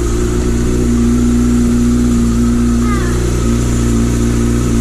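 2004 Yamaha R6's inline-four engine idling steadily, run to warm the oil so it drains more easily.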